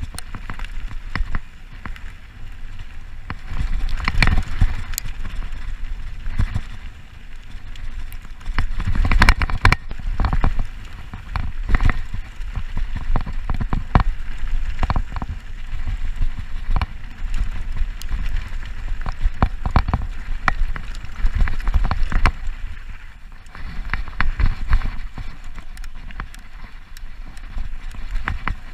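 Mountain bike descending a rough dirt trail: tyres rumbling over the ground, with frequent irregular clatters and knocks from the bike over bumps and stones.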